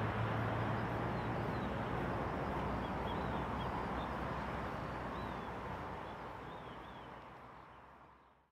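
Distant jet engine noise from an Airbus A320-214's CFM56 engines as it rolls out on the runway after landing, a steady rushing sound. A low hum from a taxiing Dash 8 turboprop dies away in the first second, and faint bird chirps come and go. The whole sound fades out near the end.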